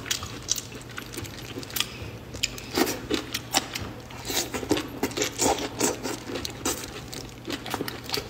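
Close-miked eating sounds: plastic-gloved hands peeling the shell off a large marinated raw prawn, then sucking and chewing the meat, heard as irregular crackles, clicks and wet mouth noises that grow busier a few seconds in.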